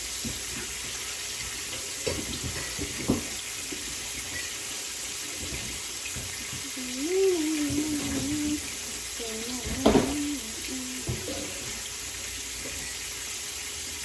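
Water running steadily into a kitchen sink as a pot of boiled macaroni is drained, with a few knocks of the pot about 2, 3 and 10 seconds in. A wavering, voice-like whine is heard twice in the second half.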